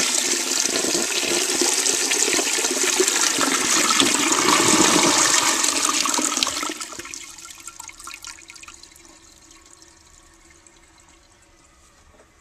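Flush of a 1943 Sentry Sanitary Corporation forward-trap washdown toilet bowl fed by a Standard 4050 tank: a strong, loud rush of water into the bowl for about six and a half seconds, then dying down over a couple of seconds to a faint, steady sound of water.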